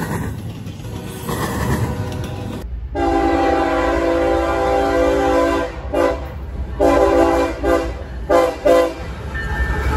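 Freight cars rolling past with wheel and rail noise. After a cut, an approaching CSX freight locomotive sounds its air horn over the train's rumble: one long blast, a short one, another long one, then three short toots.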